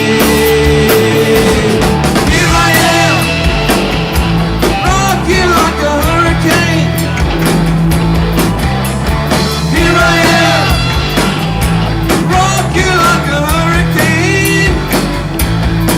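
Loud rock music from a live band with electric guitar, bass and drums. Melodic phrases that bend in pitch come in every two to three seconds.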